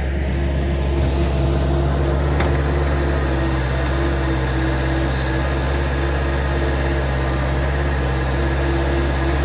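Gehl skid steer engine running steadily while pushing snow, with a wavering higher tone over the low drone and a single sharp click about two and a half seconds in.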